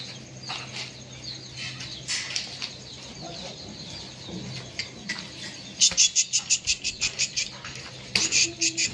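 Small birds chirping: many short high chirps, then fast loud runs of about eight chirps a second from about two-thirds of the way in. A faint steady low hum runs underneath.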